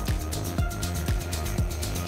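Background electronic dance music with a steady kick-drum beat, about two kicks a second.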